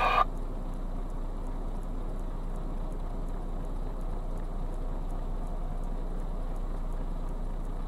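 Steady rumble of a truck's engine and road noise heard inside the cab, with faint, evenly spaced ticking.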